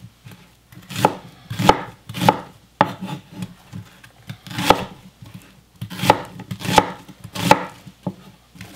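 Kitchen knife slicing a peeled onion into wedges on a wooden cutting board: about nine separate, unhurried chops, each ending with the blade knocking on the board, with a pause of about two seconds partway through.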